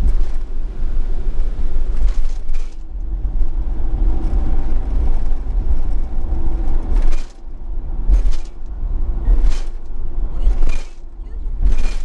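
Campervan driving on a wet road, heard from inside the cab: a steady low rumble of tyres and engine with a faint hum. Over the second half, short sharp knocks repeat about every second and a quarter.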